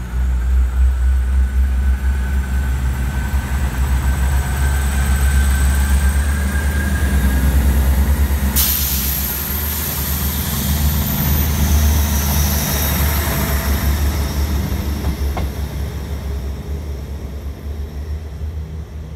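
A South West Trains Class 159 diesel multiple unit pulls away and passes close by. Its diesel engines throb low and steady under a faint whine that rises slowly as it gathers speed. About halfway through, a sudden high hiss starts; it fades out as the train moves off.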